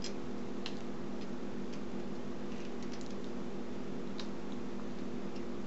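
A vegetable peeler shaving lightly along the edges and corners of a hard salt-bar soap, giving a few faint scrapes and ticks. A steady low hum runs underneath.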